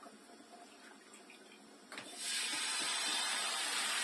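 Blini batter sizzling as it is ladled onto a hot oiled crepe pan: a hiss that starts suddenly about halfway through and then holds steady.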